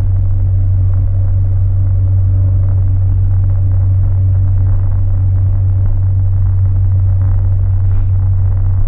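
Steady low drone of a Honda K20A-engined Acura RSX running, with no belt squeal audible.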